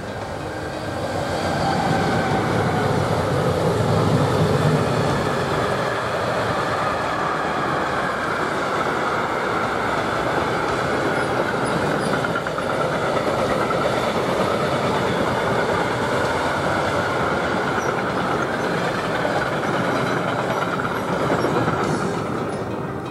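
Freight train passing behind a red electric locomotive. The locomotive goes by about four seconds in, with a deep rumble. A long string of car-transporter and sliding-wall wagons then rolls past with a steady wheel-on-rail noise, which fades near the end.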